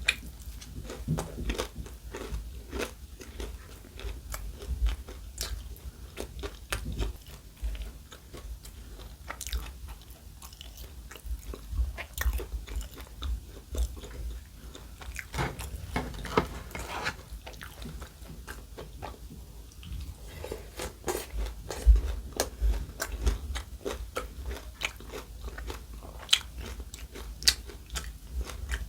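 A person chewing and biting food close to the microphone, with frequent crisp crunches and sharp clicks in an irregular stream.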